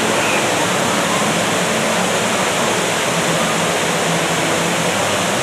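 Steady rush of water cascading down the face of a large artificial rock volcano, a man-made theme-park waterfall.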